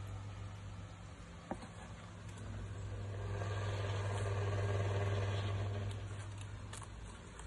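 A steady low mechanical hum, growing somewhat louder about halfway through and easing off again.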